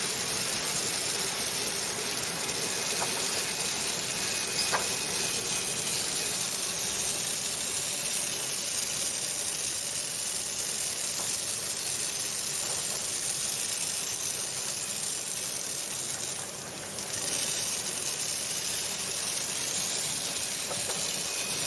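Commercial fruit and vegetable washing machine running: a steady hiss of water and air, dipping briefly about three-quarters of the way through.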